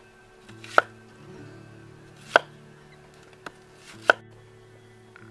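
A large knife chopping through a peeled bamboo shoot onto a wooden chopping board: three sharp chops about a second and a half apart, with a lighter knock between the last two.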